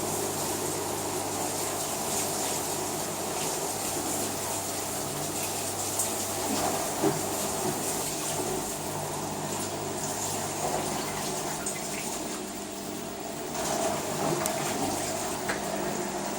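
LG WT-R852 direct-drive washing machine running through a bedding load: running water with a steady hum and a few light knocks from the drum.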